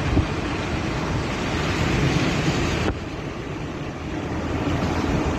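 Car driving, with a steady rush of road and wind noise over a low rumble; the hiss drops abruptly about three seconds in.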